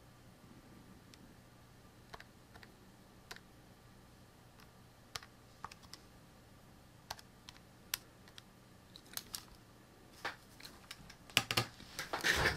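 Scattered single key presses, a sharp click about once a second, as a calculation is keyed in. They grow into a louder, quicker flurry of clicks near the end.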